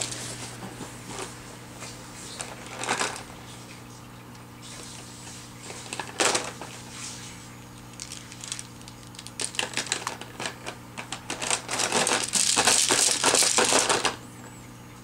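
Plastic toy links clicking and clattering against each other and a clear plastic bin as a toddler rummages through them: scattered clicks at first, then a busy, louder run of rattling near the end that stops about a second before the end. A steady low hum sits underneath.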